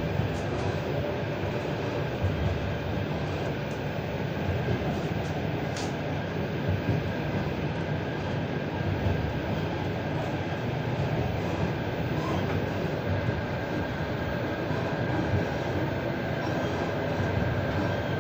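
Passenger train carriage running along the line, heard from inside the car: a steady rumble of wheels on rail with an occasional faint click.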